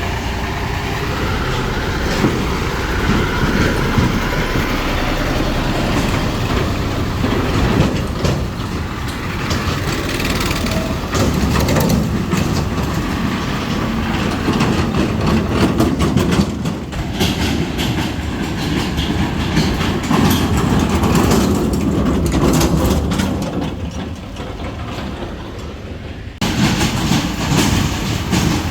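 Tractor diesel engine running hard, a loud continuous rumble with a fine rattle. It drops somewhat around 23 s and jumps back up abruptly about 26 s in.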